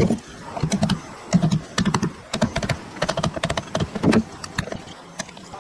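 A rapid, irregular run of light clicks and knocks of hard objects against each other, a few of them heavier thuds.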